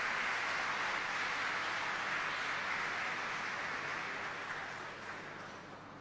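Audience applauding, a dense, even patter of many hands clapping that fades out over the last second or two.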